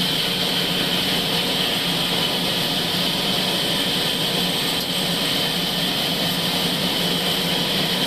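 A large sawmill band saw running steadily as it rips a squared log lengthwise, a dense unbroken machine noise with a steady high whine.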